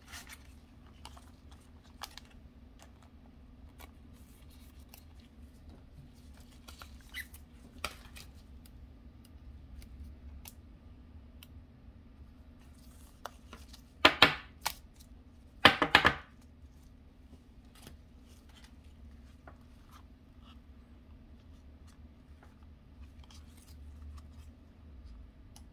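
Trading cards and a plastic card sleeve handled with gloved hands: faint rustles and light clicks, with two short, loud rasping scrapes about a second and a half apart near the middle.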